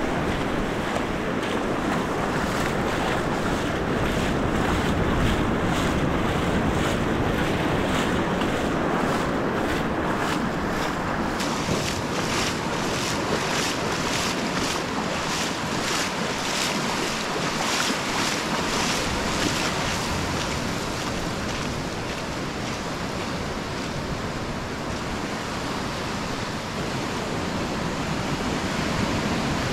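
Low ocean surf breaking and washing up over a sandy beach, a steady rush of water, with wind buffeting the camera microphone.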